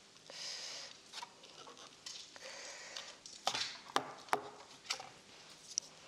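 Eating sounds: noodles slurped from cup ramen in a couple of short bursts, then chopsticks clicking sharply against bowls about five times in the second half.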